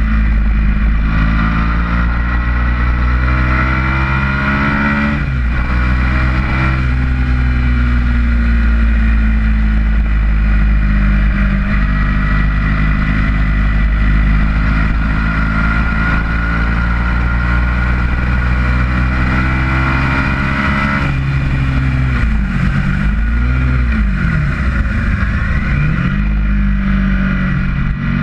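Ducati V-twin motorcycle engine under hard acceleration on track. The revs climb, drop sharply at an upshift about five seconds in, then climb again and hold fairly steady. Near the end they fall and swing back up several times, as with downshifts and throttle blips while braking for a corner.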